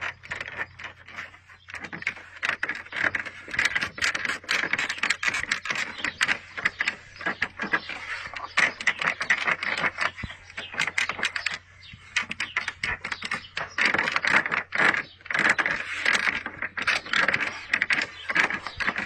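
Plastic tailgate trim panel of a BMW X5 F15 creaking and crackling in quick runs of clicks as a hand presses and rocks it, with a short pause about halfway through. The creaks come from the loosely fitted plastic cover, which the owner has already taken apart, padded with fabric tape and greased twice.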